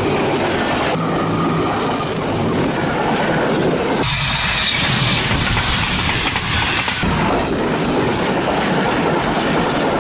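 Passenger train coaches rushing past at speed close by: a loud, steady rush of wheels on rail with a clickety-clack over the rail joints. The sound changes abruptly about four seconds in and changes back about three seconds later.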